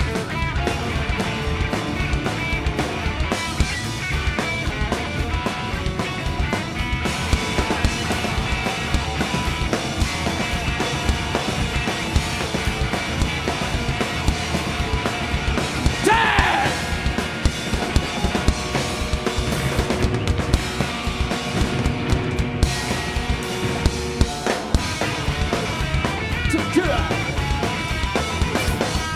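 Rock band playing live through an instrumental break, with a driving drum kit under loud band sound and no singing.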